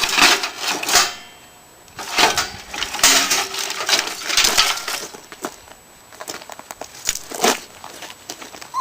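Metal parts of a tower PC clattering, scraping and clinking in a run of short knocks and rattles as the case and motherboard are knocked and pried loose.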